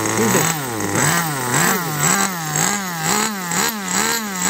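Small nitro glow engine of an RC car running at idle, then revved up and down over and over as the carburettor throttle is blipped, a little under twice a second, its pitch rising and falling with each blip.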